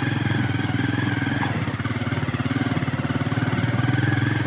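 Motorcycle engine running steadily under way, a fast even pulse with a faint steady whine above it.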